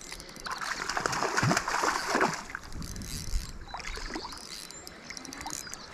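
Water splashing and sloshing as a hooked rainbow trout thrashes at the surface, loudest in the first two seconds and then dying down.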